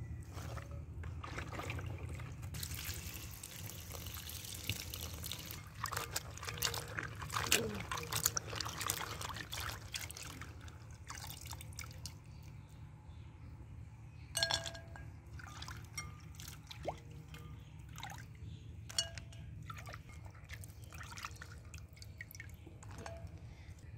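Water sloshing, splashing and dripping as pieces of dried fish are washed by hand in a clay bowl of water. The splashing is busiest in the first half, with a few sharper splashes later, over a steady low hum.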